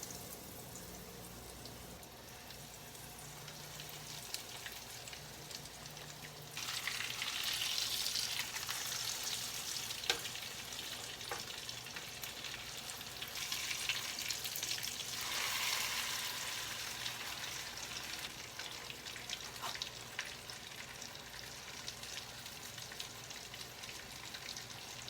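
Breaded, ham-and-Swiss-stuffed chicken rolls frying in hot oil. The sizzle jumps suddenly louder about six seconds in, swells again around thirteen seconds, then settles to a steady sizzle with a few sharp pops.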